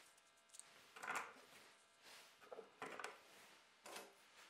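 Small spring clamps being clipped onto a wooden storage rack one after another: about four faint, short clacks of plastic against wood, the loudest about a second in.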